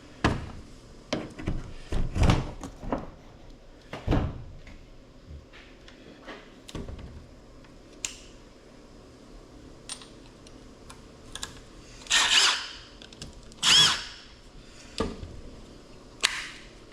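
Plastic keypad cases being handled and opened by hand: scattered clicks, knocks and thunks of plastic parts, with two louder, longer scraping or creaking sounds about two-thirds of the way through.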